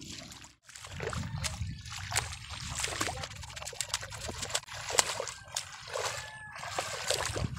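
Legs wading through the shallow muddy water of a flooded rice paddy: steady sloshing with many small, sharp splashes, after a brief drop-out about half a second in.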